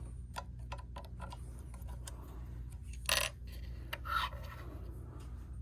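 Bushing tool's hand-turned cutter reaming a pivot hole in a brass clock plate: faint scraping with scattered small clicks, and two louder short scrapes about three and four seconds in. A low steady hum runs underneath.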